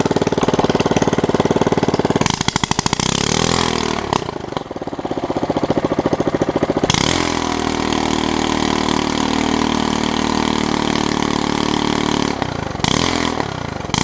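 Small single-cylinder lawn mower engine running with its muffler removed, a loud rapid popping from the open exhaust. Its speed surges and sags over the first few seconds, then it runs steadier at higher speed from about seven seconds in, and it stumbles near the end.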